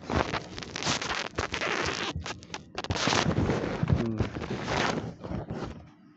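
Loud rustling and scraping handling noise in irregular bursts with short clicks, from a phone being moved and swung around by hand; it dies away near the end.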